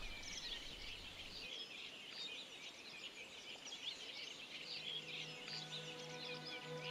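Faint chatter of small songbirds, a stream of many short chirps and twitters. About five seconds in, soft music with long held notes fades in underneath.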